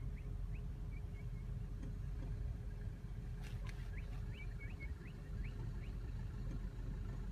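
A steady low rumble with a faint hum, and over it a small bird chirping short high notes, singly and in quick little runs.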